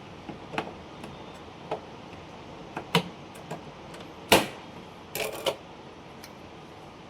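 Irregular sharp clicks and knocks from server hardware being handled and fitted over a steady hiss, with the loudest knock just past four seconds in and a quick run of clicks about a second later.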